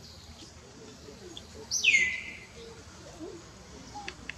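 A single high, whistle-like animal call about two seconds in that slides steeply down and then holds steady for about half a second, with a couple of faint ticks near the end.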